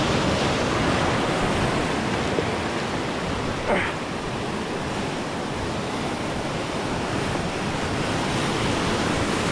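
Ocean surf breaking and washing over rocks at the water's edge, a steady rushing, with wind buffeting the microphone. A single short knock stands out just under four seconds in.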